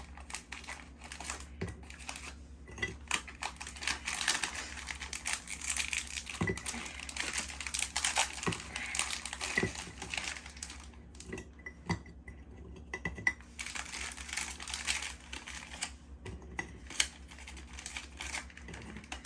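Plastic cookie packaging crinkling and rustling as a pack is opened and handled, with scattered light knocks as cookies go into a jar.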